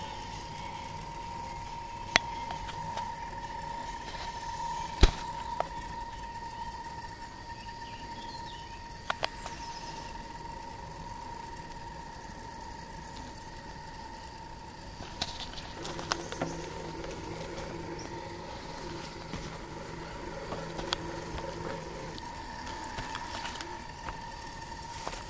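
Axial Honcho 1/10-scale electric RC crawler running with a steady high whine from its motor as it crawls over mud and roots. A few sharp clicks and knocks come through, and a deeper hum joins for several seconds past the middle.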